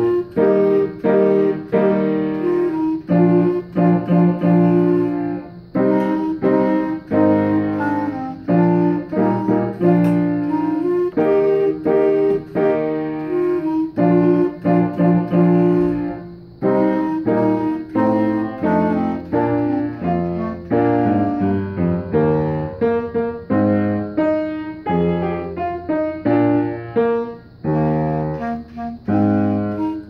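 A clarinet playing a solo piece in a steady stream of notes with brief breaks, accompanied by a piano.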